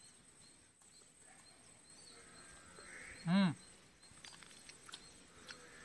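A single short bleat from livestock about three seconds in, one call that rises and falls in pitch, over faint outdoor background.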